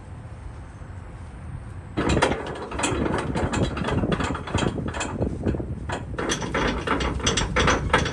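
Flatbed trailer strap winch being turned by hand, its pawl clicking in a rapid, uneven run as the spool takes up a cargo strap. The clicking starts about two seconds in.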